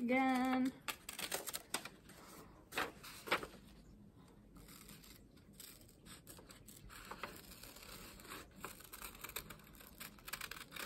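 Scissors cutting through a folded sheet of red paper, two layers at once: a run of irregular snips with short pauses between them.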